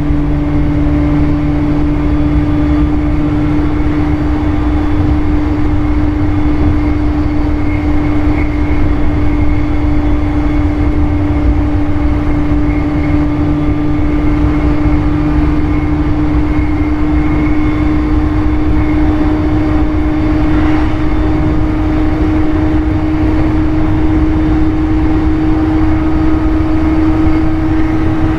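JR East E531 series electric train running between stations: a steady traction-motor whine that creeps slightly higher in pitch, over the rumble of the wheels on the rails.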